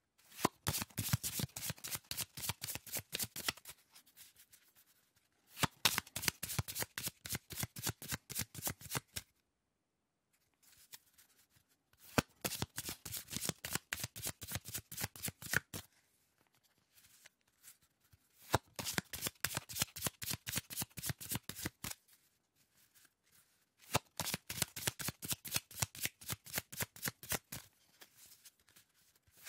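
A deck of playing cards being shuffled: five spells of rapid, crisp card clicks, each a few seconds long and thinning out at its end, with short pauses between.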